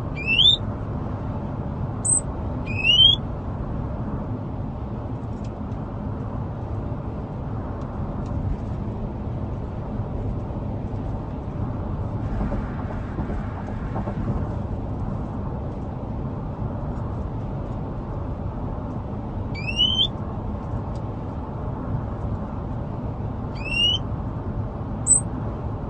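Caged songbird giving short, rising whistled notes, a few near the start and a few more near the end, with a long gap between. Under them runs the steady low rumble of the car it rides in, heard from inside the cabin.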